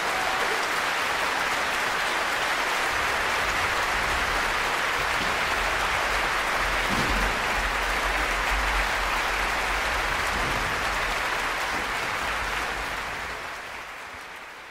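Concert hall audience applauding at the end of a performance, a dense, steady clapping that fades away over the last couple of seconds.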